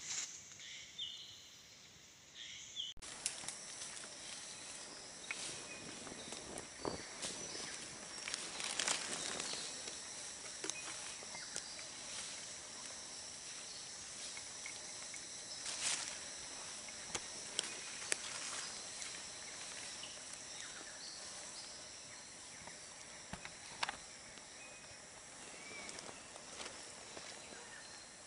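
Outdoor ambience dominated by a steady, high-pitched insect drone, with scattered sharp clicks and rustles. A few short high chirps come at the start, and the sound changes abruptly about three seconds in.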